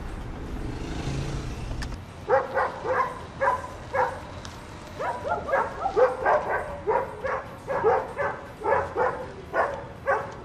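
Low engine and road rumble inside a moving vehicle for about two seconds, cutting off abruptly. Then a dog barks over and over in quick runs, many barks in a row.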